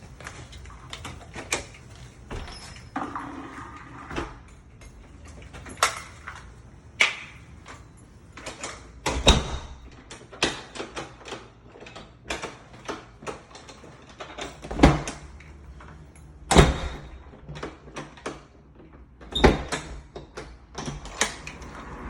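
A door being worked to test a newly fitted lock: a long run of latch and lock clicks and knocks, with four louder bangs of the door in the second half.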